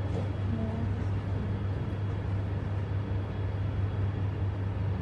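A steady low hum with faint room noise.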